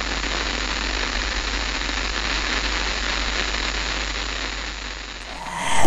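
Steady static hiss over a low hum, with a sudden swell right at the end.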